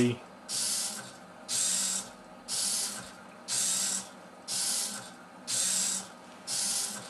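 Two hobby servos in a Meccano robot arm driving back and forth between their programmed limits. Each move is a half-second burst of buzzing gear noise, and the moves repeat about once a second.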